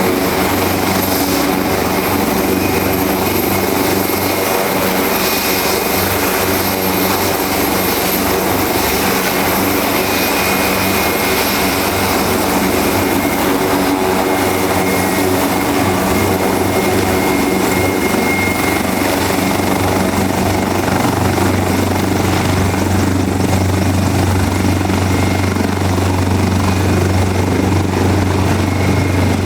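Leonardo AW189 twin-engine helicopter running: a steady high turbine whine over the rotor noise. The low rotor sound grows stronger about twenty seconds in.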